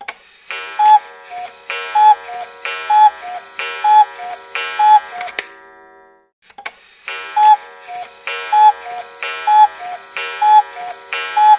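An electronic alarm-style chime playing a high-then-lower two-note figure about once a second, five times over. After a short gap the same phrase repeats, with clicks where it starts and stops.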